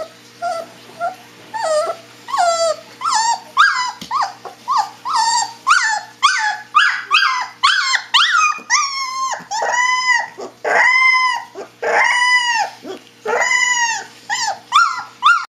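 Husky puppy yipping and howling in a high voice: a quick string of short, falling yips, about two a second, that grow into longer rising-and-falling howls about two-thirds of the way in, then a few short yips at the end.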